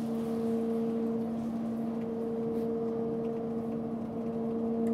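Submersible pumps in the water troughs running, a steady electric hum with a hiss of water being pumped up through the PVC lines for a stage rain effect.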